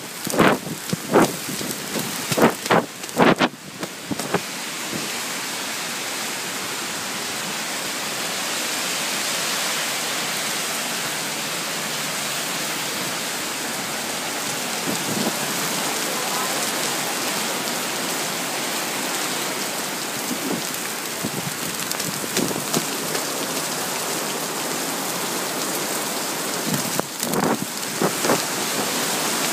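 Heavy rain pouring down onto a wet street, a steady dense hiss. There is a run of sharp knocks in the first few seconds and a few more near the end.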